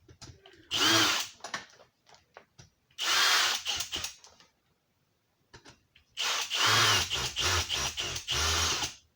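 Power drill driving screws in three bursts, the last lasting about three seconds, its motor whine rising and falling as it spins up and slows; small clicks and taps between the bursts. It is fastening a 4-inch octagonal electrical box in place.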